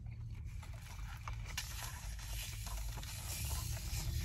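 Steady low hum inside a car cabin, with a few faint scattered clicks and light rustles.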